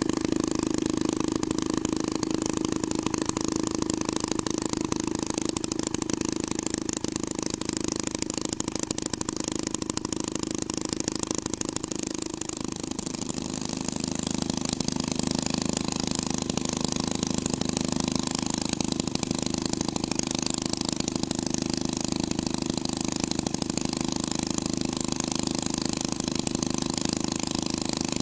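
Twin-engine hot rod running steadily at low speed, its exhaust a dense, even pulsing. About twelve seconds in the engine note dips a little lower and then holds steady.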